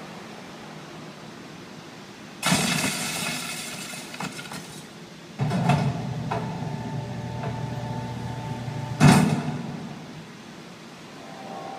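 Sound effects of a building projection show: three sudden hits, each trailing off, about two, five and nine seconds in, the last the loudest. A low steady hum with a higher tone above it holds between the second and third hits.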